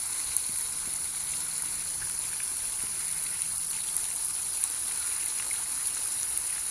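Water pouring steadily from a plastic bucket onto a small RC helicopter and splashing on the wet grass around it.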